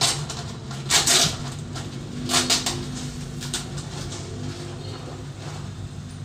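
Cement sacks being handled and shifted on a dusty concrete floor: two short, loud rustling scrapes, about a second in and again about two and a half seconds in, over a steady low hum.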